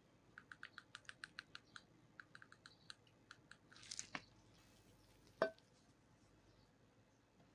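Mayonnaise squeezed out of a plastic squeeze pack: a run of faint quick clicks, about six a second, for the first three seconds or so, then a short sputter of air. About five seconds in comes a single sharp knock, the loudest sound.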